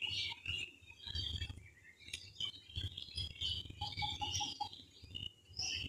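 A spoon scraping and tapping as shrimp paste is spread over wet sponge-gourd leaves on a plate: small clicks and soft knocks, with high chirps in the background and a short run of five quick even tones about four seconds in.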